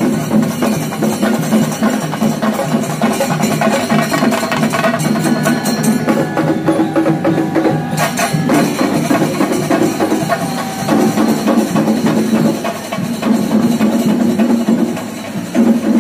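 Festival percussion ensemble playing fast, dense drum strokes, with a sustained droning tone underneath.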